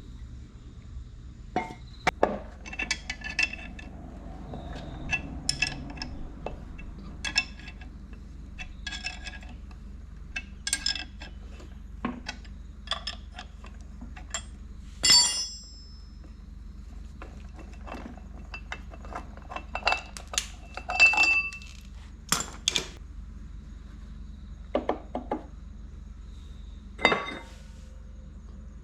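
Hand tools and metal engine parts clinking, tapping and knocking at irregular intervals as a Honda N360 race engine's bottom end is taken apart, over a steady low hum.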